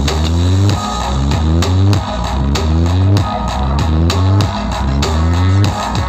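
Electronic dance music played loud through a large sound-system stack of 18-inch planar subwoofer boxes, with heavy, dominant bass, a steady beat, and a synth line that rises in repeated upward sweeps about twice a second.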